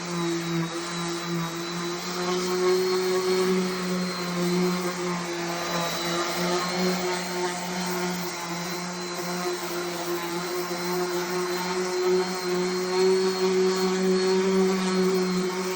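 DeWalt electric sander running against the wood of a dresser: a steady motor hum with a hiss of sanding, swelling and easing a little in level as it works.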